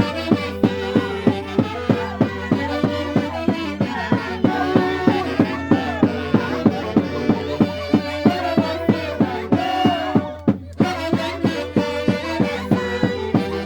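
Santiago dance music from Huancayo, Peru: an instrumental melody over a fast, steady drumbeat of about four strokes a second. The music breaks off for a moment about ten and a half seconds in, then carries on.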